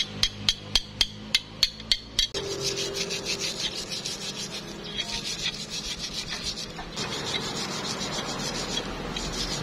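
A steel chipping hammer knocks welding slag off a fresh weld bead on a steel bar, about four sharp taps a second. About two seconds in, it gives way to a steel wire brush scrubbing the weld clean in quick back-and-forth strokes.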